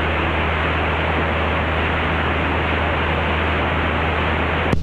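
Steady hiss of radio static on the headset audio, over the low, even drone of the Mooney M20C's four-cylinder Lycoming O-360 engine and propeller in cruise. A click comes near the end.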